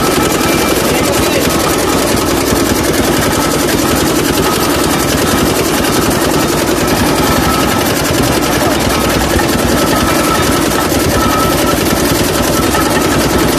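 Belt-driven sugarcane juice press running steadily, its grooved steel rollers and spur gears crushing sugarcane stalks fed through by hand, with a fast, even mechanical chatter.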